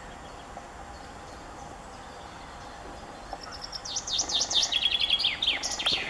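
Male common chaffinch singing one song phrase, starting a little past halfway. It is a quick run of notes dropping in pitch, then a trill of repeated lower notes, ending in a flourish.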